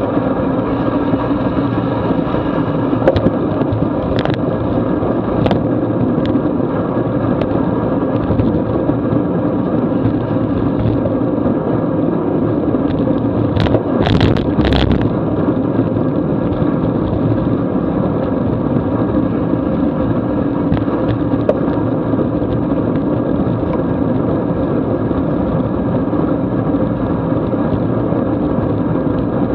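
Steady rush of wind and tyre noise from a road bike riding on wet pavement at about 22 mph, with a few short clicks and a brief louder clatter about halfway through as the rider takes a corner.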